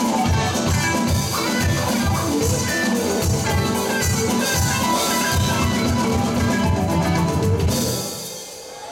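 Live rock band with electric guitars, keyboard and drum kit playing the last bars of a song over a steady drum beat, then stopping about eight seconds in and ringing out briefly.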